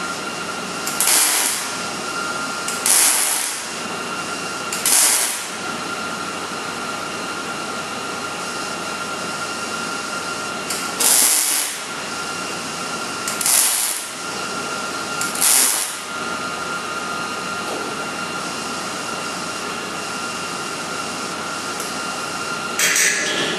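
MIG welder laying short stitch beads on frame-rail end cap plates: six crackling bursts of arc, each under a second, the first three about two seconds apart and the last three after a pause of several seconds, with a steady high hum underneath. The short beads keep heat out of the frame on these non-structural plates. Near the end comes one brief sharp sound as the wire is trimmed with welding pliers.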